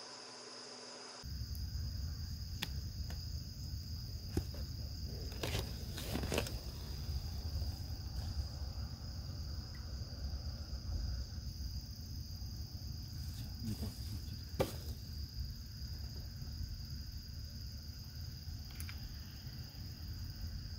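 Steady high-pitched chorus of night insects over a continuous low rumble, with a few short faint clicks scattered through.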